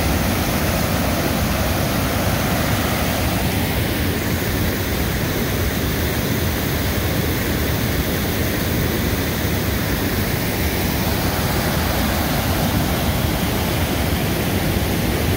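Waterfall on the Provo River: high whitewater pouring over rock ledges, making a loud, steady rushing that does not change.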